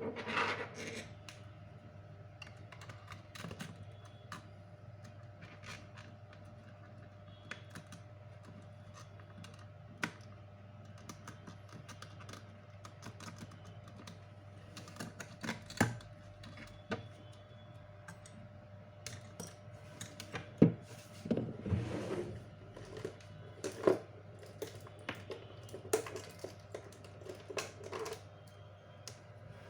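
Irregular light clicks and taps of small tools and parts being handled, coming thicker in the second half, over a steady low electrical hum.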